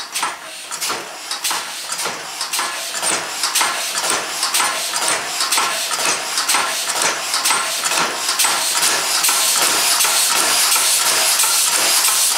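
A homemade twin-cylinder compressed-air engine speeding up as its air supply is opened. Its rhythmic clanking and puffing of air come faster and grow steadily louder as it climbs toward about 100 RPM.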